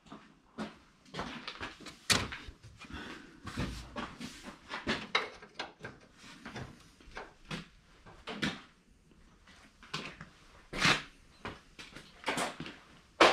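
Irregular footsteps and scuffs on a concrete shop floor with small knocks, ending with one sharp, louder knock.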